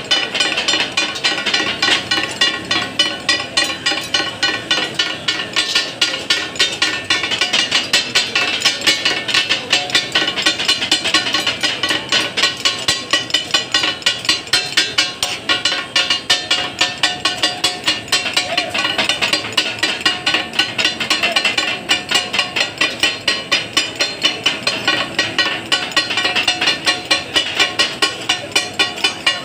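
Steel chopping blades clanging rapidly and rhythmically on a large iron tawa griddle as katakat is chopped, about four strikes a second with a ringing metallic tone; this clatter is the sound the dish is named after.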